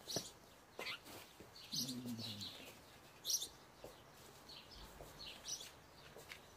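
Small birds chirping faintly in short, scattered high calls, with a brief low voice-like sound about two seconds in.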